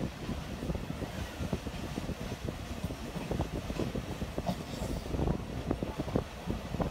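Rehman Baba Express passenger train running along the line, heard from inside a carriage: a steady low rumble with frequent irregular clacks and knocks from the wheels and coach.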